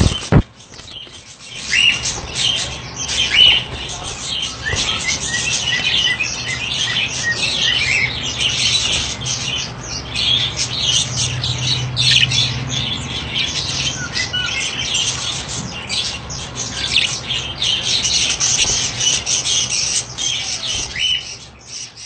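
Budgerigars chattering and chirping in rapid, overlapping calls, with a single sharp knock just after the start.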